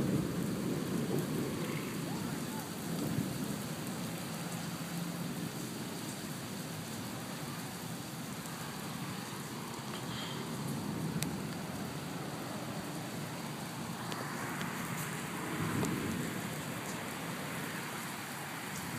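Steady rain falling on wet pavement, with low rolling thunder that fades over the first few seconds and rumbles again around 15 seconds in. The rain hiss grows heavier from about 14 seconds in.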